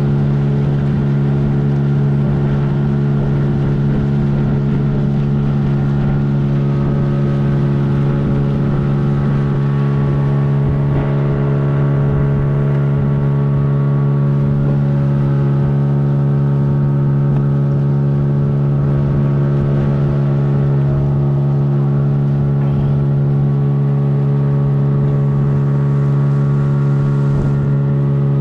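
Boat's outboard motor running at a steady speed, a constant even drone with a strong low hum.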